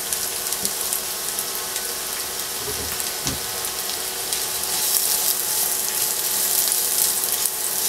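Julienned carrots frying in hot vegetable oil in a pan, a steady crackling sizzle, as they are stirred with a silicone spatula. A couple of soft knocks come about three seconds in.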